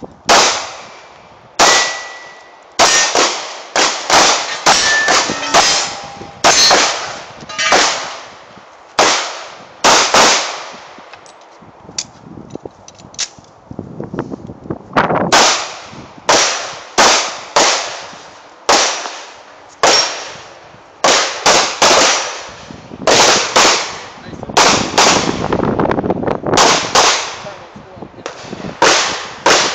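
Pistol shots fired in quick irregular strings, about one a second, each sharp crack trailing off in echo, with a pause of about three seconds around the middle. After some shots a steel target rings briefly with a metallic clang.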